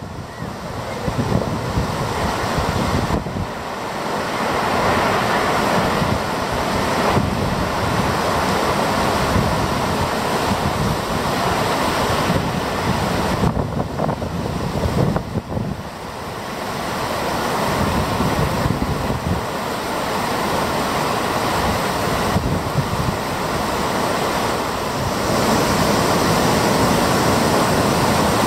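Steady rushing of whitewater: Takakkaw Falls and fast glacial meltwater rivers tumbling over rocks, with wind on the microphone. The level shifts a few times as the shots change.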